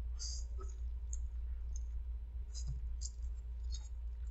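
A person eating noodles with chopsticks: a few short, wet mouth clicks and slurps spread through, over a steady low hum.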